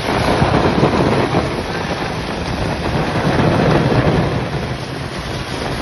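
Heavy rain and rushing floodwater: a steady rushing noise that swells about half a second in and again around three seconds in.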